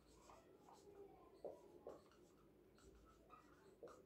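Faint scratching and squeaking of a marker writing on a whiteboard, in short strokes.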